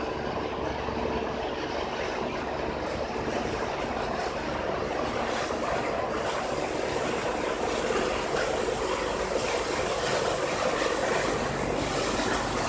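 Fishing boat's engine running steadily, under a rushing noise that grows slowly louder from about the middle on.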